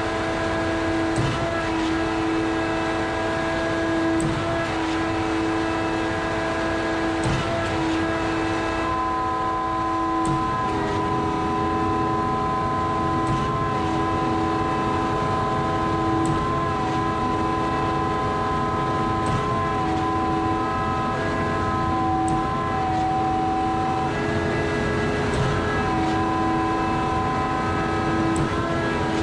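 Truck-mounted concrete boom pump running steadily while pumping concrete: the engine drones under a steady whine made of several held tones, with a faint click about every three seconds.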